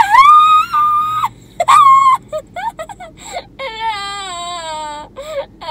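A young girl squealing with laughter in high-pitched shrieks, loudest in the first two seconds. Near the end comes one long drawn-out squeal that slides slowly down in pitch.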